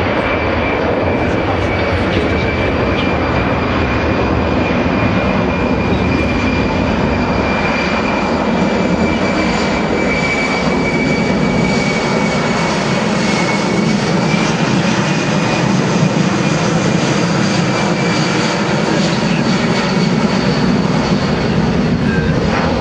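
Boeing C-17 Globemaster III's four Pratt & Whitney F117 turbofan engines running loud as the transport jet flies a low pass overhead, a steady high whine riding over the rushing jet noise.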